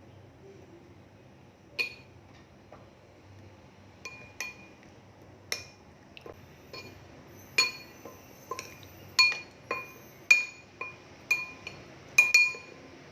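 A utensil clinking against a bowl while potato slices are turned in a thick masala paste. The clinks ring briefly at the same few pitches each time; they are sparse at first and come thick and fast in the second half.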